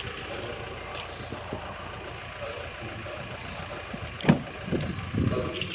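Pickup truck engine idling steadily, with a sharp thump about four seconds in, the loudest sound, followed by a few brief low knocks.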